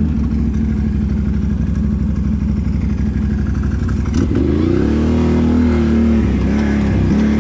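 Can-Am Renegade XMR 1000R ATV's V-twin engine running at low revs, then revving up about four seconds in and holding the higher revs, with a brief dip near the end.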